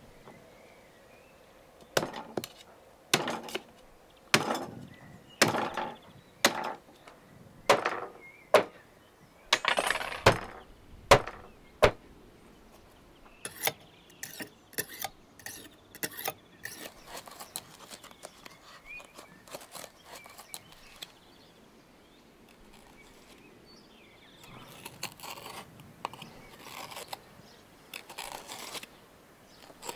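Kitchen knife being sharpened on a whetstone: a run of scraping strokes of steel on stone, about one or two a second, turning quicker and lighter after about 13 seconds. Near the end there are quieter sounds of the knife cutting between raw lamb ribs.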